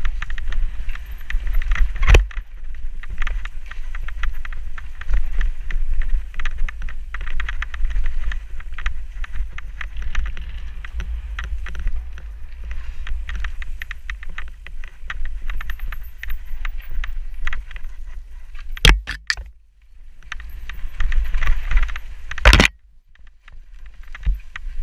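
Mountain bike being ridden fast down a rough dirt singletrack, heard from the rider's helmet: a steady rush and rumble with constant rattling from the chain and bike over roots and stones. Now and then a sharp knock from a bigger hit, the loudest about two seconds in and near the end, with brief quieter moments between.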